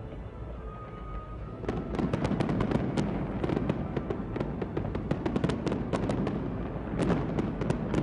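Fireworks going off in rapid succession: dense crackling and sharp bangs that start about two seconds in, with music underneath.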